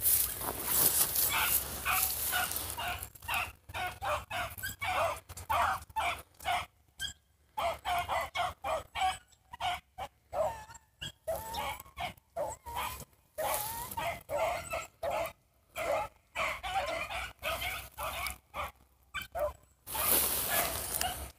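Rabbit hounds barking and baying in quick, repeated calls, two or three a second with short breaks, as they run a rabbit's trail. A rushing noise sweeps over the microphone at the start and again near the end.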